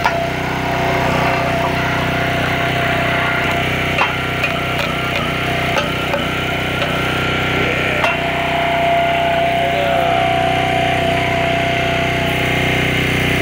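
An engine-driven machine runs steadily while a plastic toy car is crushed against a steel plate by a wooden block, with a few sharp cracks and snaps spread through.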